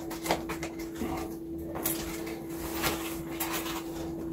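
Soft rustles and light clicks of banknotes and a wallet being handled as cash is counted out, over a steady low hum.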